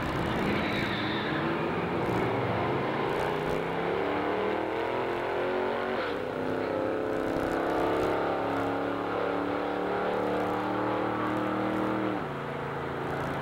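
An early Chevy van's engine at full throttle on a quarter-mile drag run, its pitch climbing, dropping sharply about six seconds in, then climbing again until it falls away near the end.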